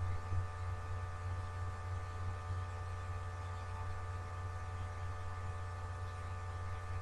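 Steady electrical mains hum with faint steady whining tones above it: the background hum of the recording setup, with no speech.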